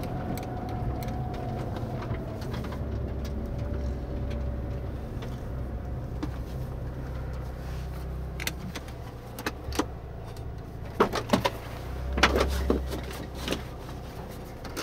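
Mazda RX-8's twin-rotor Wankel engine running steadily at low revs, heard from inside the cabin, with a faint whine falling slowly in pitch in the first few seconds. In the second half, a string of sharp clicks and knocks inside the car.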